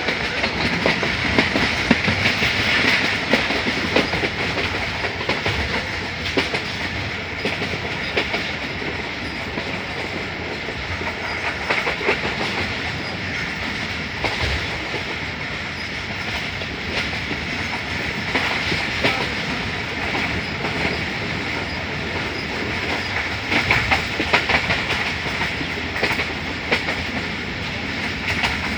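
Passenger train running at speed, heard from the window of one of its coaches: a steady rumble and rush of air, with groups of wheel clacks over the rail joints every few seconds.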